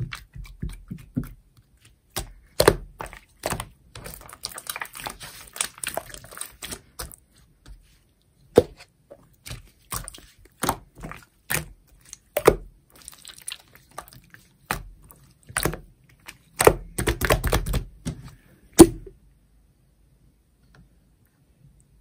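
Clear slime pressed, folded and squeezed by hand, giving sharp sticky clicks and crackling pops with soft squishes between them. A dense run of crackles comes about three-quarters of the way through.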